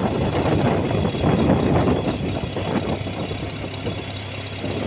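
A fishing boat's engine idling steadily, with water splashing around the hull.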